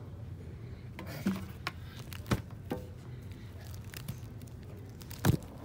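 Vinyl LP records in their sleeves knocking and clacking against each other as they are flipped through in a record bin: a string of sharp clicks, the loudest near the end, over a low steady hum.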